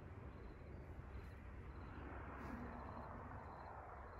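Wind rustling through the leaves of a snowball bush (Viburnum opulus 'Roseum'): a soft, even hiss that swells about halfway through, over a low rumble.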